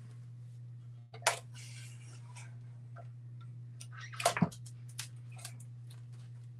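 A few sharp clicks and knocks of craft supplies being handled, such as a roll of tape, the loudest about four seconds in, over a steady low hum.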